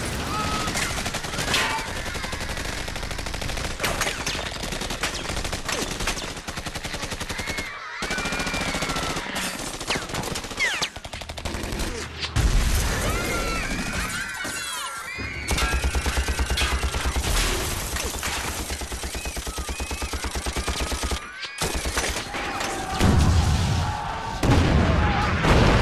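War-film battle soundtrack: dense, rapid automatic gunfire, shot after shot in quick succession. It breaks off briefly three times as one scene cuts to the next, and grows louder and deeper near the end.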